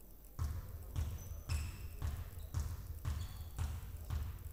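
Basketball bounced on a hardwood court, dribbled in place at the free-throw line: about eight bounces at a steady rhythm of roughly two a second.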